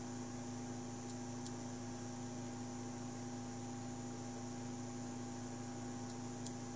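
Steady hum made of several even tones over a faint hiss, from two stepper motors creeping through a slow move, each driven at 2 A RMS by a TMC2660 driver.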